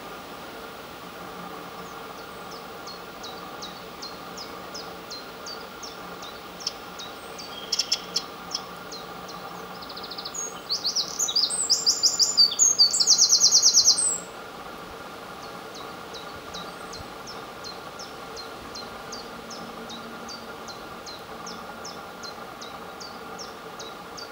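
Eurasian wren singing one loud, rapid burst of song lasting about three and a half seconds, ending in a very fast trill. Before and after it, a faint series of short high notes repeats a few times a second.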